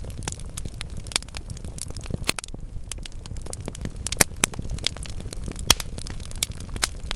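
Wood fire in a fireplace crackling steadily, with frequent small snaps and a few louder pops over a low rumble of flame.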